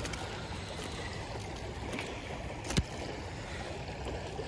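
Shallow creek riffle running steadily, with one sharp click a little under three seconds in.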